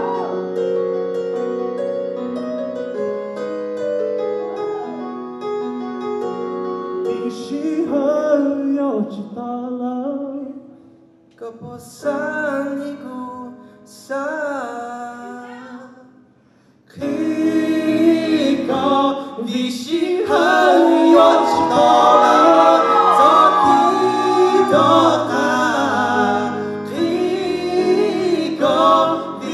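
Electronic keyboard playing held chords while a man sings into a microphone. The singing comes in phrases with short breaks, then resumes fuller and louder about halfway through.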